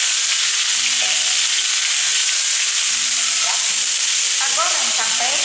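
Ground spice paste frying in hot oil in a metal wok: a steady sizzle, with a metal spatula stirring it round the pan. The paste is being sautéed until fragrant.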